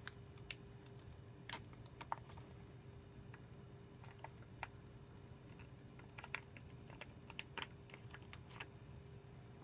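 Faint, scattered light clicks and taps of small computer parts being handled by hand, irregular and sparse, over a steady faint hum.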